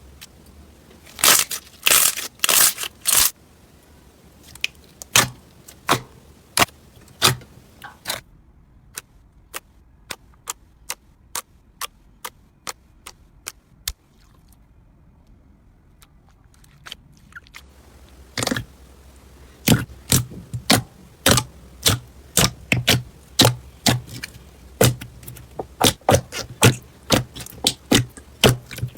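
Slime being pressed and worked by hand, giving sharp clicks, pops and crackles. They come in quick runs, thin out to scattered single clicks for several seconds in the middle, then come thick and fast again.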